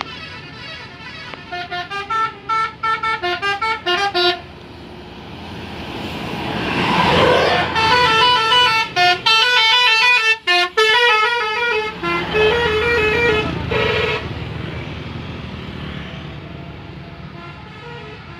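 PO Haryanto buses' telolet horns playing quick multi-note tunes: a short run of notes for about three seconds, then a louder, longer tune for about six seconds. A bus passes loudly between the two tunes, and the sound fades near the end.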